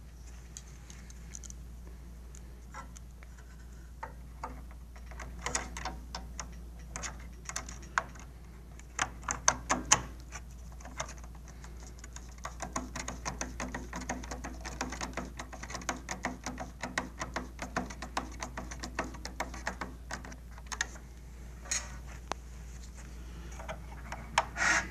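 Screws being fitted by hand and turned in with a screwdriver: small sharp clicks and ticks of metal on metal, a quick cluster of louder clicks about five to ten seconds in, then a steadier run of light ticks through the middle.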